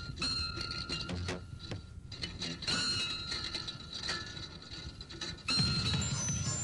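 Mechanical clicking and whirring with a few steady high tones. About five and a half seconds in, the band's music comes in suddenly and much louder.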